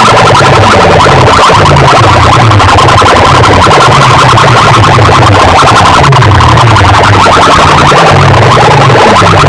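Very loud, clipped DJ-style music played through a large loudspeaker sound system: repeated falling bass sweeps under a steady buzzing high tone.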